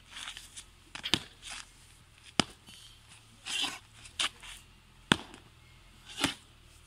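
Taiji practice: about four sharp slapping cracks from forceful strikes, a second or more apart, with short scuffs of shoes shifting on sandy, gritty ground between them.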